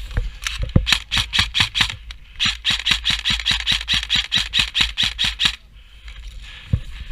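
Airsoft guns firing: a rapid, even string of sharp shots about six a second, which stops abruptly about two-thirds of the way through.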